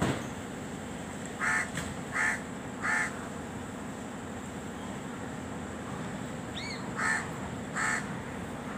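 Five short, harsh animal calls: three in quick succession, then a pause, then two more, with a brief rising-and-falling bird chirp between them. A steady low hum runs underneath.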